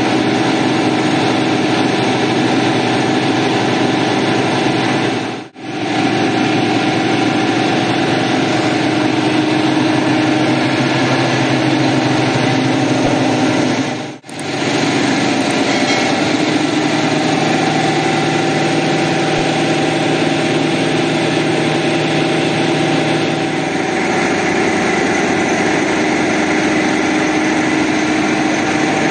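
A machine motor running steadily with a constant drone, dropping out briefly twice.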